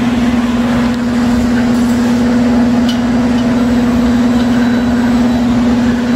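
A machine running with a steady hum of one constant pitch, over a hiss, with a faint click or two.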